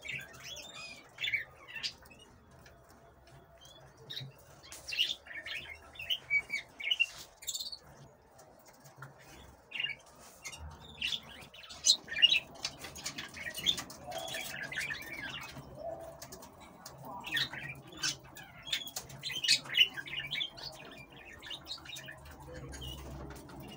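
Caged canaries chirping, with short calls scattered irregularly throughout.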